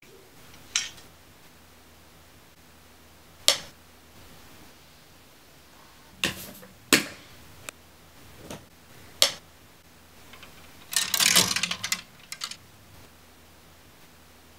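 Clothes hangers clicking and knocking as garments are tossed onto a pile, with a short burst of fabric rustling about eleven seconds in.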